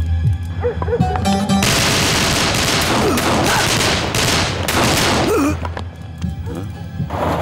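A long burst of rapid gunfire starting about one and a half seconds in and running about four seconds, with a second burst starting near the end, over a low droning music score.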